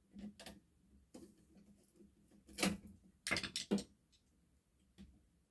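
Scattered small clicks and knocks of a metal mounting plate and wires being handled at an electrical back box. The loudest run of clicks comes about two and a half to four seconds in, with one more near the end.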